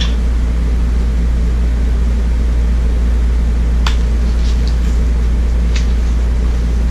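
A steady low mechanical hum, with a faint click about four seconds in and another near six seconds as a picture book is handled.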